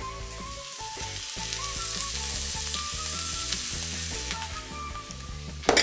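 Diced zucchini and onion sizzling in oil in a hot wok while being stirred with a spatula, the sizzle growing louder over the first two seconds. A sharp knock comes near the end.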